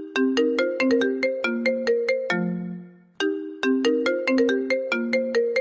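A smartphone ringtone: a short, fast melody of crisp single notes that ends on a held low note, then starts over about three seconds in.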